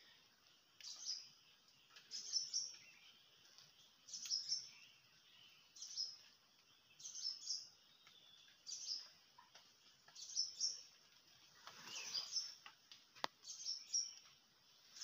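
Several birds giving short, high chirping calls, a few every second or two. A single faint click sounds near the end.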